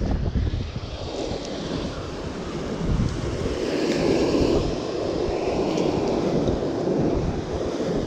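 Surf washing steadily against the shore, with wind rumbling on the microphone.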